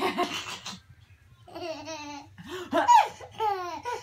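A toddler laughing hard while being tickled: a loud burst at the start, then, after a short pause, three high laughs that fall in pitch.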